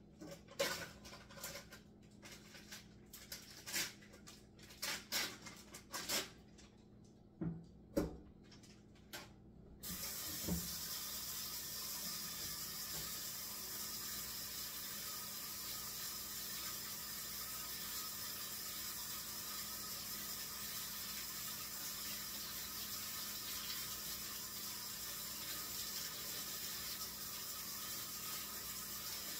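A few scattered clicks and knocks, then about ten seconds in a kitchen tap is turned on and runs steadily into the sink, for rinsing raw chicken legs.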